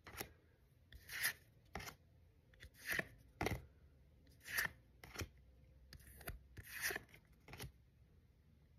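Pokémon trading cards being slid one by one off the front of a small stack and onto the back, the cards rubbing past each other in about ten short, faint swishes.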